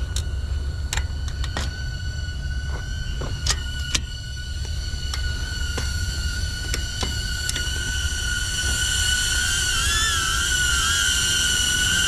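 HoverAir X1 mini drone's propellers whining steadily at one high pitch, growing louder and wavering in pitch near the end as the drone comes back. Scattered sharp clicks in the first several seconds and a low wind rumble on the microphone.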